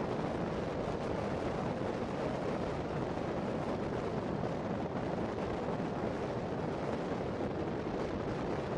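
Wind buffeting the camera microphone: a steady, dense rushing noise with no let-up.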